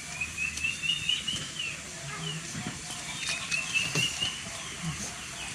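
A bird singing two warbling, trilled phrases, the second starting about three seconds in, with scattered short clicks and smacks.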